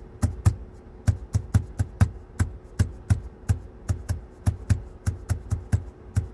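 Running footfalls, even thuds at about three a second, over a faint steady hum.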